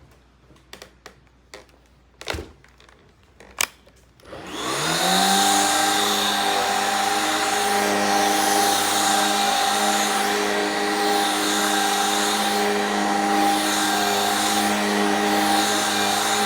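A few clicks and knocks, then a Shark Rocket Pro stick vacuum is switched on about four seconds in: its motor spins up with a rising whine and settles into a steady whine with a rush of air.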